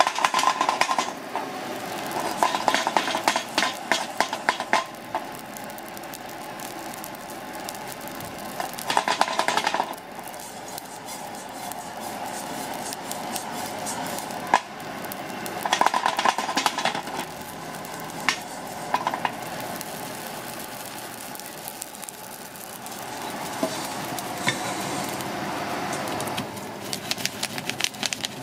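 Dry-roasting in a metal pan: a utensil stirs and scrapes dry granules against the metal in several bursts of rattling and scraping, with a steady hiss between them.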